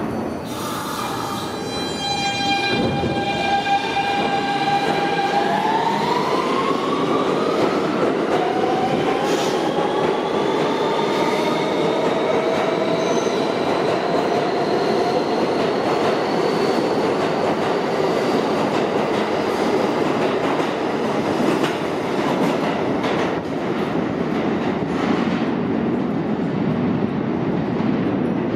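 R160B subway train with Siemens propulsion pulling out of the station. Its traction motors whine in a chord of steady tones, then glide up in pitch as the train gathers speed, over the steady rumble and clatter of steel wheels on the rails.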